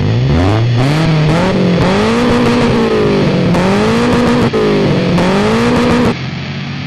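An engine revving: its pitch climbs at first, then rises and falls in repeated swells about once a second, and cuts off abruptly near the end.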